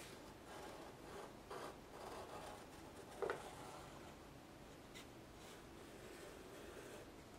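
Faint scratching of a pencil drawing lines on watercolor paper, with one short tap a little after three seconds in.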